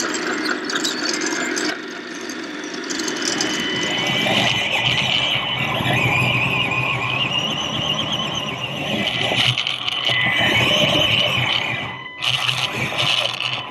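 High whine of a radio-controlled scale model's electric motor and gear drivetrain, heard through a camera inside its cab. The pitch slowly rises and falls as the model drives. Other machinery sounds come just before it, in the first couple of seconds.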